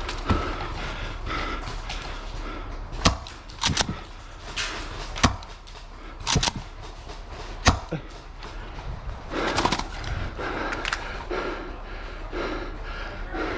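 Airsoft gunfire: about eight sharp, separate pops spread over the first eight seconds. A softer sound repeats underneath about twice a second, most plainly near the end.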